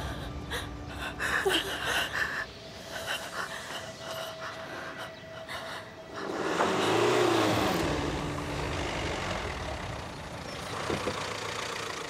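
A Jeep Renegade SUV driving up and pulling to a stop. Its engine and tyre noise swells about six seconds in, then slowly eases off.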